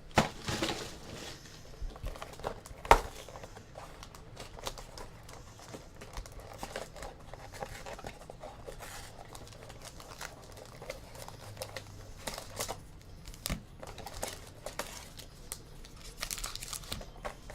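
Plastic wrapping being torn and crinkled as a sealed box of football trading cards is opened and its cards handled. There are irregular rustles and small clicks, a sharp snap about three seconds in, and more crinkling near the end.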